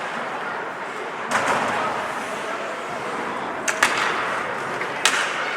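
Ice hockey play in an arena: sharp cracks of sticks and puck striking, one about a second in, two in quick succession past the middle and another near the end, over a steady murmur of rink and crowd noise.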